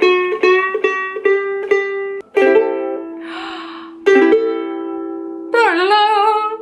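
Flight Travel soprano ukulele, linden-wood top, being tuned: one string plucked about twice a second, its pitch creeping up, then two strummed chords ringing out, about two and a half and four seconds in. A woman's voice comes in near the end.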